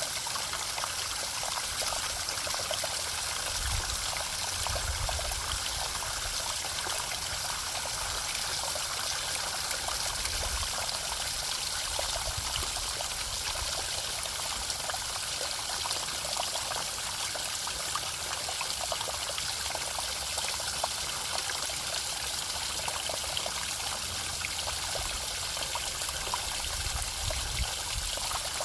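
Running water trickling and splashing steadily, with occasional faint low rumbles underneath.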